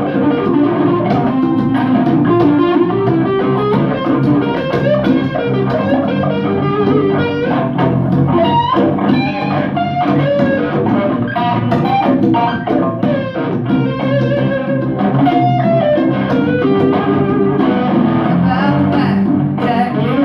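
Electric guitar playing a solo melody with bent notes, over a steady hand-played conga rhythm.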